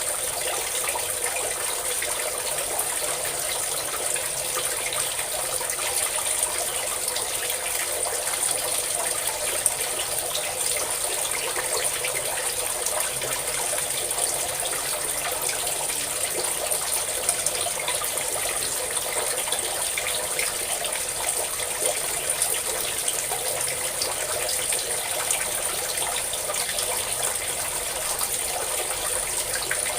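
A stream of water pouring and splashing steadily, a continuous even rush with small splashes here and there.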